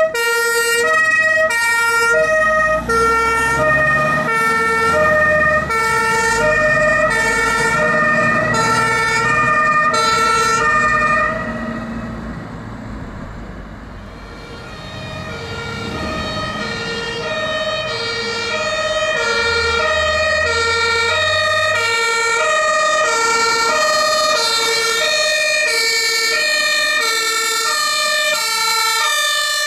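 Fire engines' two-tone sirens (German Martinshorn) alternating steadily between a low and a high note, with diesel truck engines rumbling as they pass. The siren fades about 12 s in as one truck drives away, then grows louder again as another approaches.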